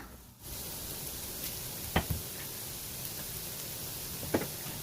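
Chopped carrot, onion, ginger and green chillies sizzling steadily in hot coconut oil in a pan as they are sautéed. Two sharp knocks, about two seconds in and near the end.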